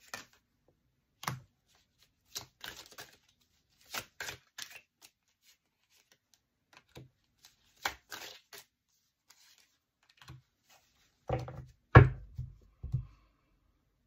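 Oracle cards being drawn from the deck and laid down on a cloth-covered table: a run of short, separate snaps and rustles of card stock, with a few louder thumps near the end.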